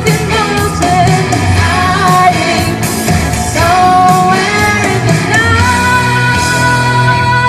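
Live rock song in an 80s style: a singer's voice over a loud band or backing track with guitar and drums, holding one long note near the end.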